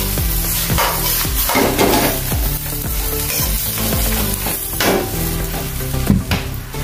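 Kangkong (water spinach) sizzling in a hot wok as it is stir-fried, a metal wok spatula scraping and knocking against the pan in irregular strokes.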